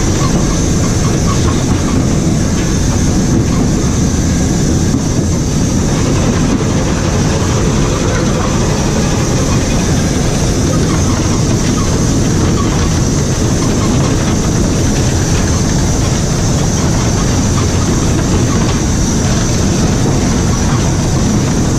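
Steady running noise in the cab of an LNER Class A4 steam locomotive under way at speed: a continuous loud rumble and rush of the engine, wheels and track.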